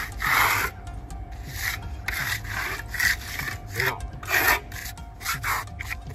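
Steel hand trowel scraping and rubbing over a fresh, wet concrete slab in a run of short, uneven strokes, pressing the surface smooth to close small pinholes. A faint steady tone runs underneath.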